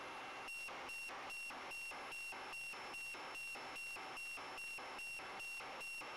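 Electronic beeper giving a steady run of short high-pitched beeps, about two and a half a second, starting about half a second in over a faint steady hiss.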